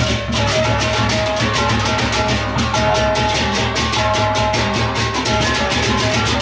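Sasak gendang beleq ensemble playing: many pairs of kenceng hand cymbals clash together in a fast, even, unison rhythm over the large barrel drums and ringing metal tones.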